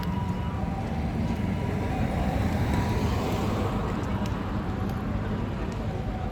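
Road traffic noise with a vehicle passing, swelling to its loudest about halfway through. Over it, the two alternating tones of a Japanese ambulance siren, a higher and a lower one, come and go faintly.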